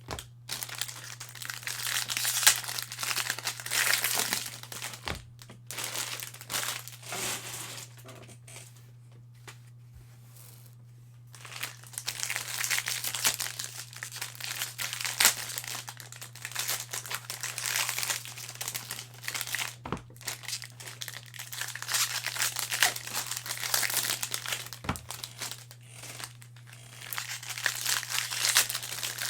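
Plastic foil wrappers of 2021 Bowman Jumbo baseball card packs crinkling and tearing as packs are ripped open and handled, in irregular bursts with a quieter lull about eight seconds in. A steady low electrical hum runs underneath.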